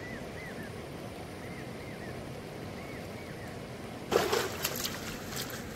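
Steady rush of flowing stream water, with a few faint short high chirps; about four seconds in, a louder stretch of splashing in the water.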